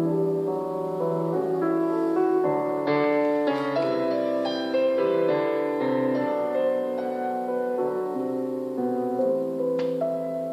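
Piano music from an FM broadcast playing through the small built-in speaker of a Panasonic RF-1260 portable radio, with a faint click about ten seconds in.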